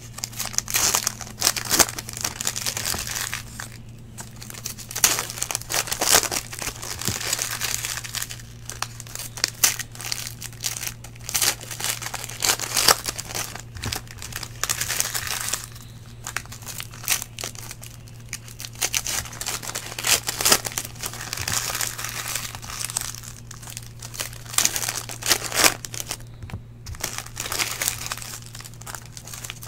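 Foil wrappers of Panini Prizm football card packs crinkling as they are torn open and handled, in spells with short pauses, along with the cards being sorted. A steady low hum runs underneath.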